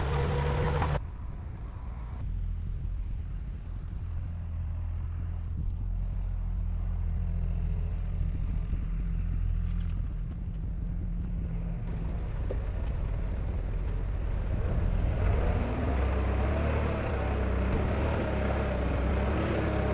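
Heavy diesel engine of earth-moving machinery running steadily, with a low hum. The sound changes abruptly about a second in, and a higher, wavering sound joins in over the last few seconds.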